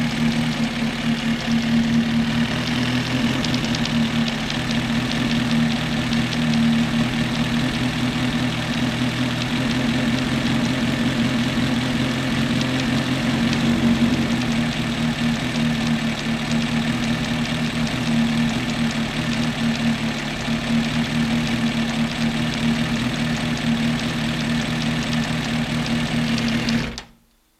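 Suzuki Bandit 1200's inline-four engine idling steadily with a fine, fast ticking noise from the stator cover, a noise that appears only when the engine is hot. The sound cuts off suddenly near the end.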